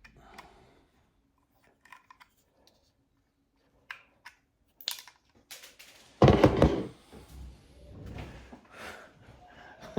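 Small clicks and taps of a tiny screwdriver and a guitar-pedal knob being handled while a knob set screw is worked on. A louder thunk about six seconds in, then quieter handling and rubbing.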